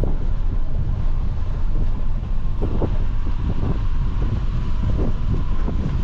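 Wind buffeting the microphone: a heavy, steady low rumble with gusty swells.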